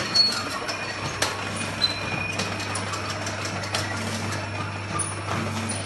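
Flat-bottle sticker labeling machine running: a steady low motor hum that sets in about a second in, with scattered sharp mechanical clicks and knocks from the conveyor and labeling head.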